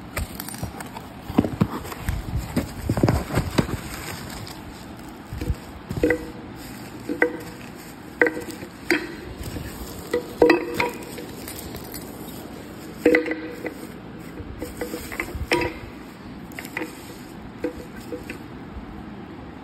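Unpacking a cardboard parcel: knocks and rustling of the box for the first few seconds, then a string of sharp crinkles and light clinks as the bubble-wrapped contents are handled.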